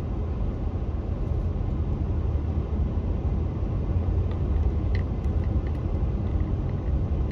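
Steady low rumble of a car driving slowly, engine and tyre noise heard from inside the cabin, with a couple of faint clicks about four and five seconds in.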